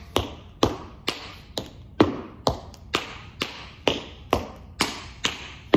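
Tap shoes' metal taps striking a wooden floor in a steady rhythm, about two taps a second, each with a short ring of room echo.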